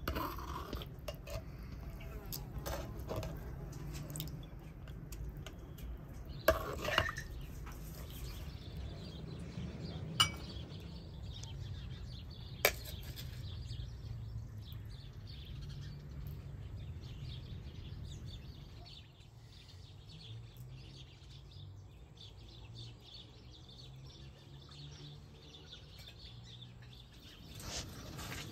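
A metal ladle and serving spoon clinking against a glazed clay pot and ceramic plates as stew is served, with a few sharp clinks standing out in the first half.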